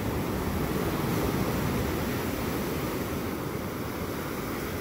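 Ocean surf breaking and washing up the beach, with wind buffeting the microphone: a steady wash of noise, heaviest in the low end.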